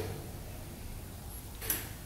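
Two short clicks as ATV front differential parts are handled, one right at the start and a louder one near the end, over a faint steady low hum.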